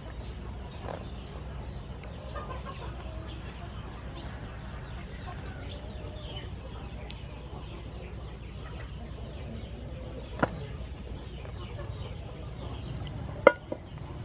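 Chickens clucking faintly in the background over a steady low hum, with a small sharp knock about ten seconds in and a louder sharp knock near the end.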